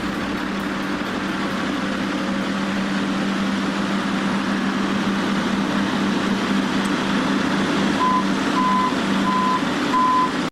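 Heavy machine's engine running steadily, getting slightly louder. From about two seconds before the end, a backup alarm beeps four times at one pitch, about one and a half beeps a second.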